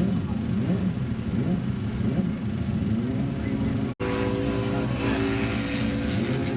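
Motorcycle engine noise mixed with some voices, then after a sudden cut about four seconds in, an engine idling steadily.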